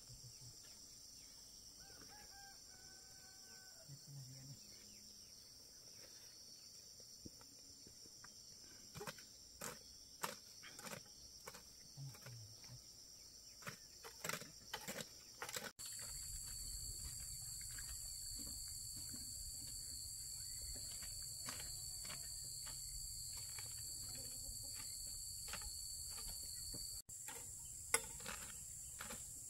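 Farmyard ambience: a short chicken call about two seconds in over a steady high insect drone, with scattered clicks and taps through the second half and one sharp tap near the end.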